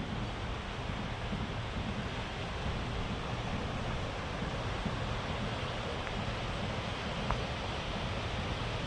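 Sea surf washing onto a beach, a steady rushing noise, with wind rumbling on the microphone.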